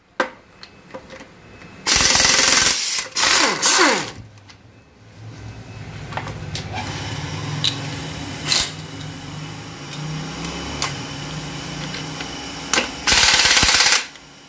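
Pneumatic impact wrench undoing the transmission case bolts in loud bursts: a run about two seconds in, a short one around four seconds, and another near the end, its pitch falling away as it spins down. Between the bursts there is a steady low hum and a few light clicks.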